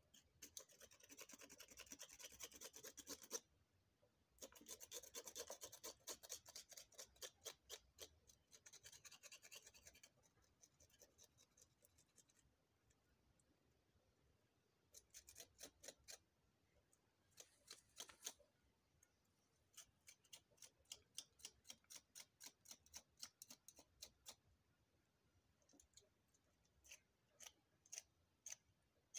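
Feathers being pulled by hand from a wet, scalded hen, faint: rapid tearing and rasping strokes in two long runs during the first ten seconds, then separate pulls a few a second with pauses.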